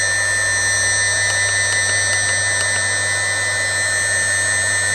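2.2 kW Chinese water-cooled CNC spindle, driven by its inverter at 100 Hz, running steadily at about 6000 rpm: an even high-pitched electric whine over a low hum.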